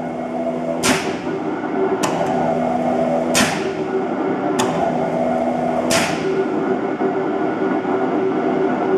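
V&O 75-ton OBI double-action punch press with its flywheel running at a steady hum, tripped through single strokes: five sharp metallic clacks about a second and a quarter apart as the clutch engages and the ram cycles and stops, some trailing into a short hiss. After about six seconds only the steady running hum remains.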